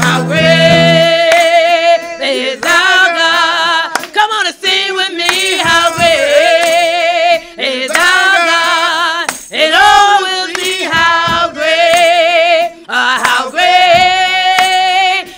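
Worship singing: long held notes sung with strong vibrato, in phrases of a second or two with short breaks between, over quiet accompaniment.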